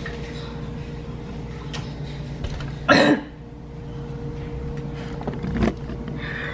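A loud, sharp knock about three seconds in and a softer low thump a little after five and a half seconds, over a steady low hum.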